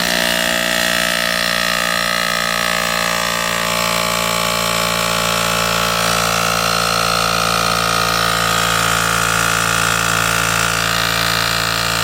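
Electric air compressor running steadily, building air pressure in a fuel-injector test rig.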